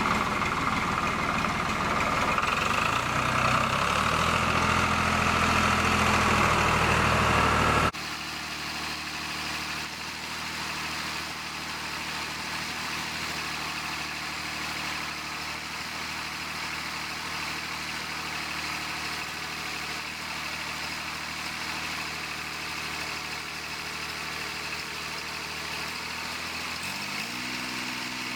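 Tractor engine running with the front loader, its note stepping up a little a few seconds in. About eight seconds in the sound drops suddenly to a quieter steady run, and near the end the engine speeds up.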